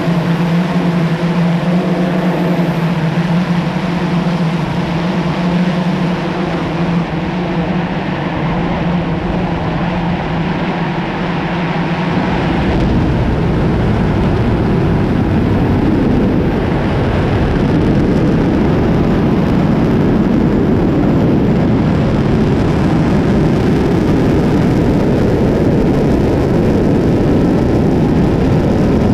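A drone's propellers hum steadily. About twelve seconds in, a deep, loud rumble starts suddenly and holds: a 75-tonne-thrust kerosene–liquid-oxygen rocket engine firing on its test stand.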